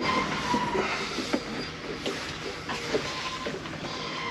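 Scattered metallic clicks and knocks over a steady hiss: mechanical work on a boat engine as it is being lifted.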